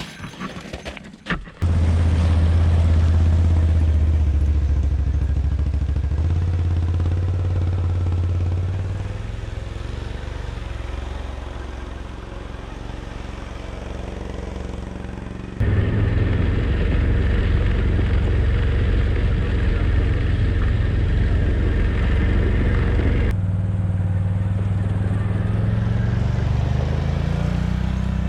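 ATV engine running under way, a steady low drone that shifts in pitch, with abrupt changes in character about two-thirds and four-fifths of the way through and a rise in revs near the end. Light handling clicks come in the first couple of seconds, before the engine sound starts.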